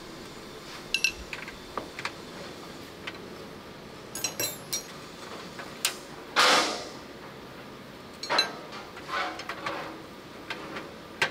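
Spanner and pliers clinking and scraping against a rusty steel tank dashboard panel as small fittings are worked loose: scattered sharp metallic clicks, with a longer, louder grating scrape about six seconds in.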